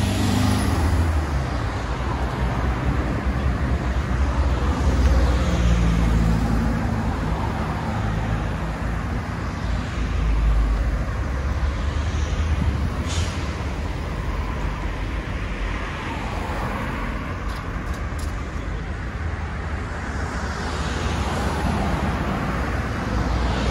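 Road traffic: cars and other vehicles driving past one after another, their engine rumble and tyre noise swelling and fading as each passes.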